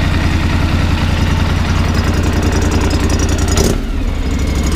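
2016 Polaris Sportsman XP 1000's parallel-twin engine idling steadily through an HMF Swamp Series aftermarket exhaust. A brief sharp sound comes about three and a half seconds in, and the note turns lower and duller after it.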